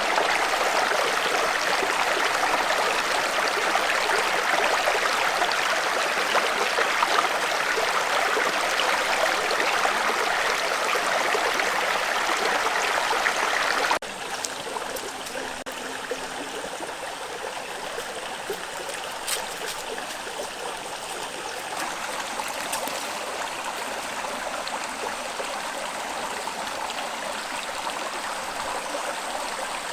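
Stream water running steadily. About halfway through it drops suddenly to a softer run of water, with a few faint clicks.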